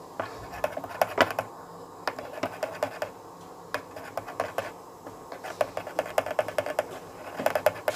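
A spoon stirring thin green chutney in a bowl, clicking and scraping against the bowl's sides in quick, irregular taps. The taps are busiest in the first second or so and again in the last two and a half seconds.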